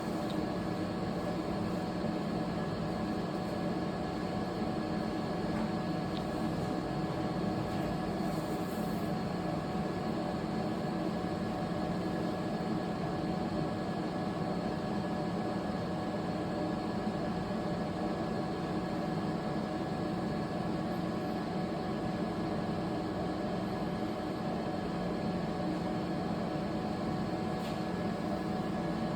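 3D crystal laser inner-engraving machine running with a steady hum made of several constant tones over a noise hiss, unchanging throughout.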